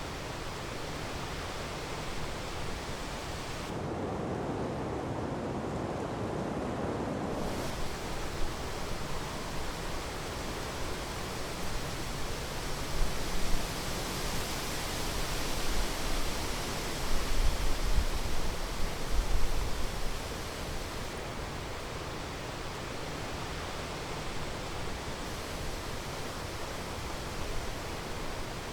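Strong wind rushing steadily, with heavy gusts buffeting the microphone in a low rumble for several seconds around the middle.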